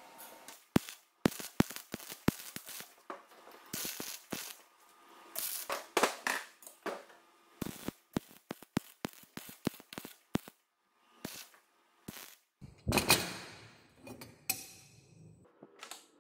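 Wire-feed (MIG) welder tack-welding the joints of a square steel-tube frame: a series of short, sharp crackles and pops as the arc strikes and stops, with a longer, louder burst near the end.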